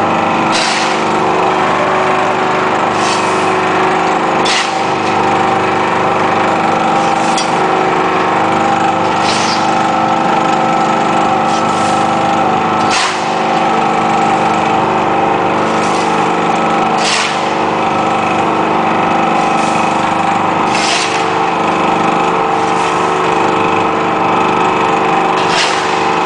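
Y81-130 hydraulic metal baling press running: a steady loud hum from its pump and motor with several held tones, broken by short sharp clicks every couple of seconds.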